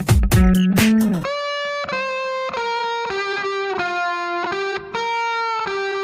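Background music: a drum beat stops suddenly about a second in, leaving an electric guitar playing a slow melody of held notes.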